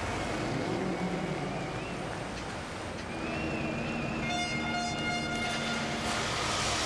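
Stadium crowd noise with an air horn blowing one held note about four seconds in, and a wavering high whistle rising above the crowd twice before it.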